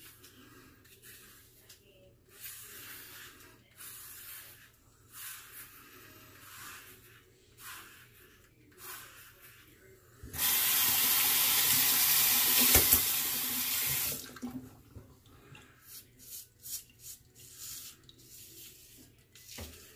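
Bathroom sink tap running for about four seconds midway, with one sharp knock while it runs. Before and after it come soft, short, irregular scraping strokes, the straight razor cutting through several days' stubble.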